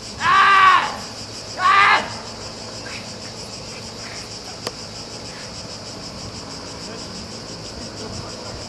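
A person's voice letting out two loud yells, the first about half a second long and the second shorter, about a second apart. Under it a steady high insect drone runs throughout, and there is one sharp click near the middle.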